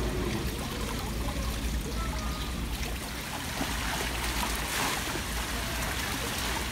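Fountain water trickling and running steadily into a shallow stone basin. A little past halfway, a child's foot kicks through the water and splashes.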